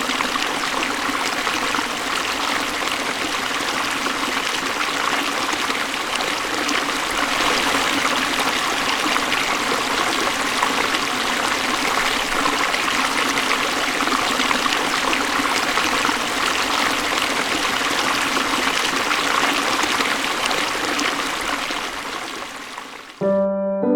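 A hill river flowing over stones with a steady rushing sound. Near the end it fades out and piano music begins.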